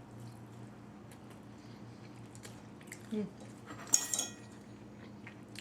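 Tableside eating sounds: scattered small clicks of food and utensils, a brief vocal sound, then one sharp ringing clink of cutlery against a dish about four seconds in.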